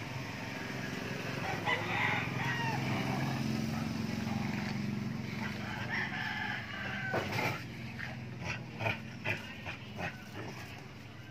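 A rooster crowing, with a low steady hum underneath. A run of short knocks follows in the second half.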